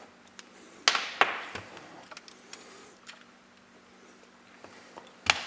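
Plastic RCA plugs being pushed together and into a monitor's video input jack: two sharp clicks about a second in, a few light ticks of handling, and another sharp click near the end.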